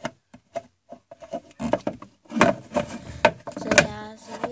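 Small plastic toy furniture pieces clicking and knocking as they are handled and set down on a tabletop: a string of light, irregular taps and clacks, the sharpest near the end.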